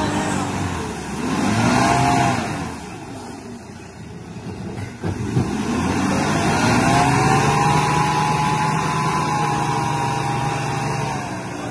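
A 4x4 pickup truck's engine revving hard under load while the truck is bogged in deep mud ruts on a steep climb. The revs swell about two seconds in, drop back, then rise about five seconds in and hold high until near the end.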